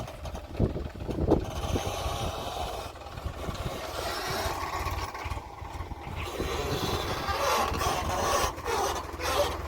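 Diesel engine of a JCB 3DX backhoe loader running steadily while it loads mud, with a few knocks in the first second or so and scraping and clattering of the bucket and soil building near the end.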